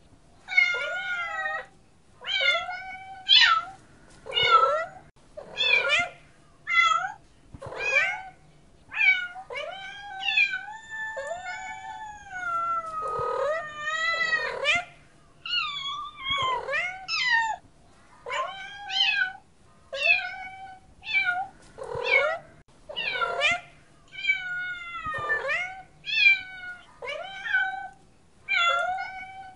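Cats meowing over and over, roughly one meow a second, with a run of longer, wavering calls around the middle.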